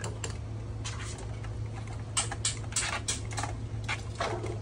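Hands handling the internal parts of an opened Panasonic 3LCD projector: a run of short scratchy rustles and clicks of plastic and circuit board being moved, more frequent after about two seconds, over a steady low hum.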